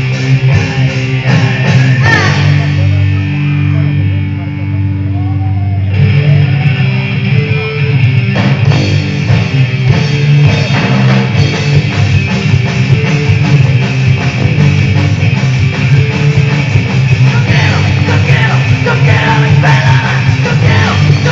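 Live punk rock band playing loud distorted electric guitars, bass and drums, heard from the audience. For a few seconds near the start a held chord rings with lighter playing, and then the full band crashes back in.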